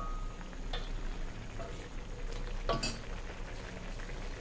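Metal spatula and spoon stirring a thick coconut-milk curry in a metal wok over heat, with a soft sizzle and a few sharp clinks of metal against the pan, the loudest about three seconds in.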